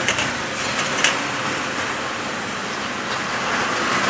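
Road traffic passing close by, a motorbike and cars going past with a steady rush of noise. Two sharp clicks sound near the start, about a second apart.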